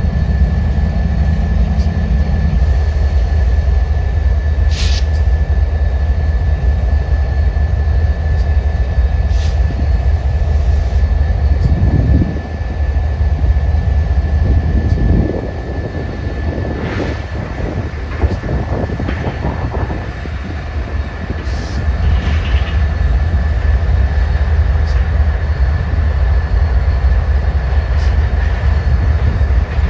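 A train running past with a steady heavy rumble and a constant high whine, with sharp clicks every few seconds from the wheels on the rails.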